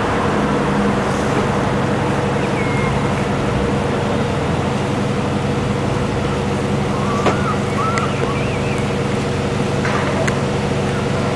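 Diesel engines of double-decker buses idling, a steady hum. A few short bird chirps sound over it, about two and a half seconds in and again around seven to eight seconds.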